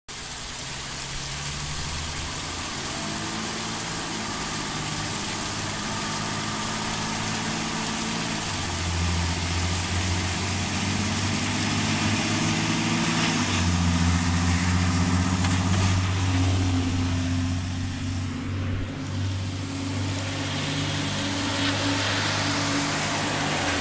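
Engines of approaching emergency vehicles running, their low drone stepping up and down in pitch and slowly getting louder. Tyre hiss on the wet road grows near the end.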